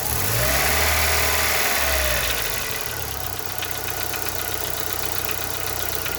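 Chevrolet Corsa engine revved briefly and then settling back to idle, where a rapid light tec-tec ticking returns. The tick is heard only at idle and disappears under throttle. Mechanics have put it down variously to piston slap, a piston pin or a hydraulic lifter.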